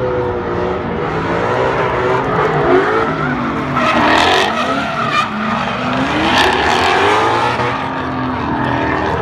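Two drift cars, one of them a Ford Mustang, with their engines revving up and down as they slide sideways. The tyres squeal and screech, loudest about four seconds in and again about six and a half seconds in.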